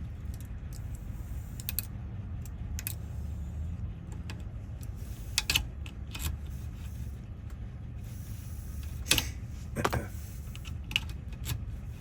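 Key being worked in and out of a car door lock cylinder, giving scattered sharp metallic clicks of the key against the wafers, over a low steady hum. The wafer lock is being worked free after corrosion kept the key from going all the way in.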